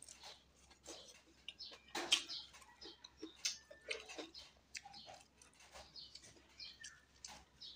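A person eating rice and fish by hand: wet chewing and lip smacking heard as a run of short clicks and smacks, the loudest smack about two seconds in.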